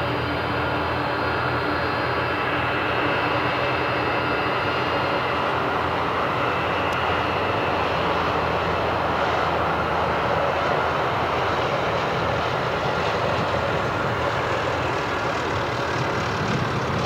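Jet engines of a Boeing 747 Large Cargo Freighter (Dreamlifter) running as it taxis after landing: a steady jet rumble with a high whine that fades after the first few seconds.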